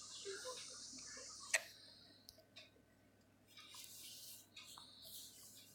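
Faint clicks over low hiss, with one sharper click about a second and a half in.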